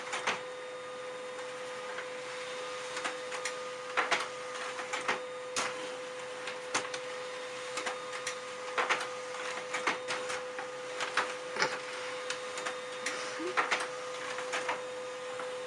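Small desktop laser printer running: a steady hum with a held tone, broken by irregular clicks and ticks from its mechanism.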